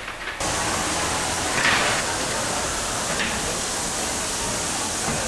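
Steady, even machine-and-air noise of a large garment-factory floor, cutting in abruptly about half a second in, with a brief louder swell about two seconds in.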